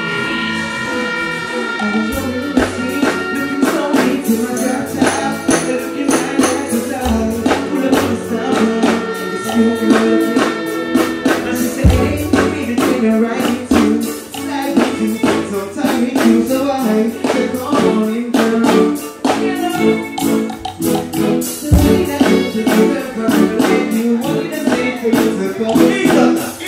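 Loud live stage music through a PA system: held notes at first, then a driving beat with percussion comes in about two seconds in, with a vocalist singing over it.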